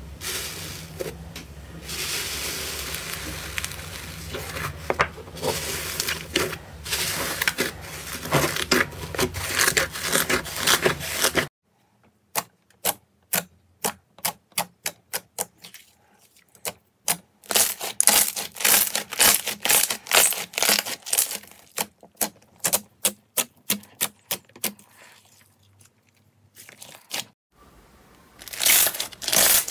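Hands squishing slime. First a tub of rainbow cloud slime is pressed, giving a dense crackly fizz over a low hum; about a third of the way in this cuts to pink jelly foam slime poked with the fingertips, giving separate sharp clicks about two a second that then come thicker and faster.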